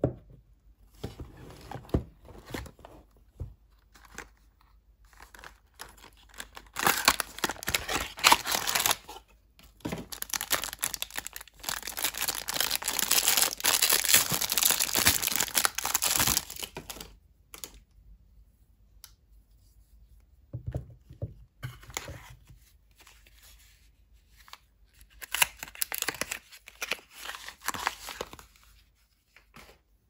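Hands tearing open and crinkling a clear plastic wrapper off a bar of soap. The wrapper crackles in loud bouts, the longest lasting about six seconds in the middle, with another bout near the end and quieter handling and taps in between.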